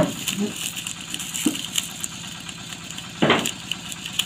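A steady engine-like hum, with a few short clicks and rustles and one brief louder burst about three seconds in.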